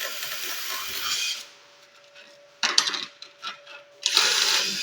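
Harsh metalworking noise from a steel-fabrication job, a steady hiss that stops about a second and a half in. Then a few sharp metallic clicks and taps, and a second burst of the hiss near the end.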